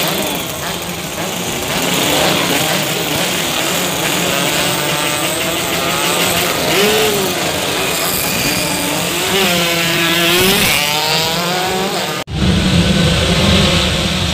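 Racing underbone motorcycles of a 116cc class running hard through a corner, their engine pitch swooping up and down as the bikes pass. About twelve seconds in, the sound cuts abruptly to a louder, lower engine drone.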